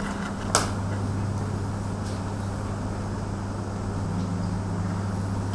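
Steady low electrical hum with a second tone above it, over a constant hiss, and a single sharp click about half a second in.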